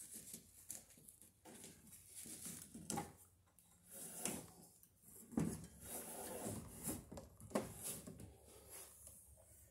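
Plastic-sheathed electrical cable being pulled and handled against wooden wall framing: irregular rustling and scraping with scattered light knocks.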